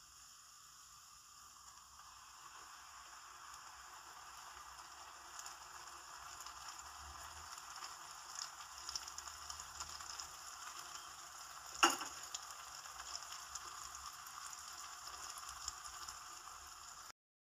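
Mushrooms and tuna sizzling as they sauté in a nonstick frying pan: a steady frying hiss that slowly grows louder, with small pops and crackles. One sharp knock about twelve seconds in is the loudest sound, and the sizzling cuts off abruptly near the end.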